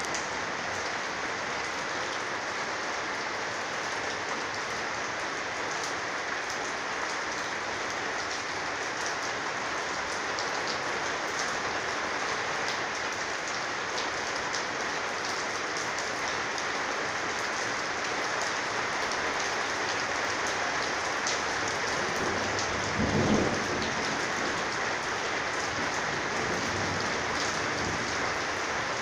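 Heavy rain falling steadily on a corrugated sheet roof, with fine drop ticks throughout. A brief low rumble rises and fades about three-quarters of the way through.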